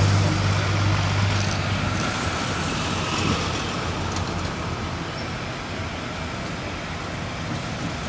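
Heavy diesel lorries passing on the road: a deep engine hum is loudest in the first two seconds, then fades away into steady traffic noise.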